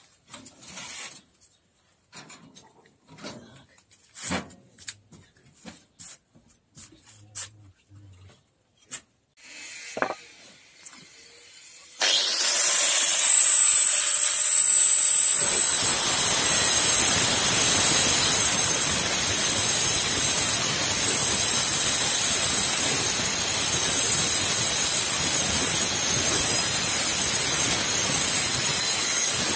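Scattered knocks and clicks, then about twelve seconds in an angle grinder with a diamond cutting disc starts suddenly with a high steady whine. A few seconds later it bites into a steel rebar rod and cuts steadily.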